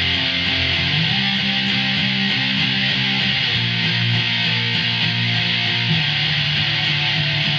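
Electric guitar in drop D tuning playing the strummed chorus chord riff, the low chords changing about one, three and six seconds in.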